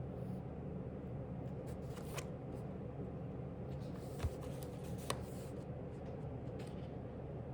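Pages of a paper book being handled and turned: a few soft paper rustles and short clicks over a steady low room hum.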